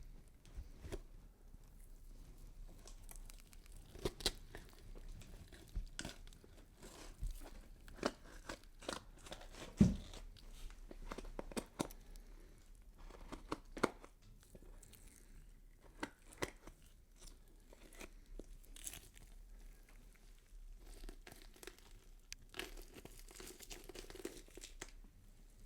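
Horror foley effect of skin being torn and peeled: irregular short tearing and crackling sounds, with one louder hit about ten seconds in and a longer, more continuous tear near the end.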